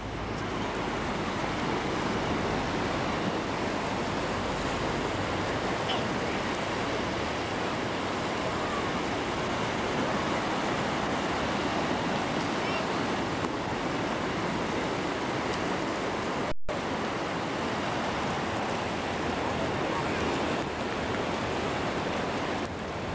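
Ocean surf washing up on the beach: a steady hiss of small waves, with a momentary dropout in the sound about two-thirds of the way through.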